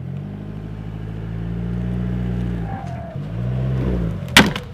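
Jeep Wrangler engine running low and slow as it backs onto a wooden pallet, rising and falling in pitch once. Near the end, one loud sharp crack as the pallet's wood gives way under the wheel.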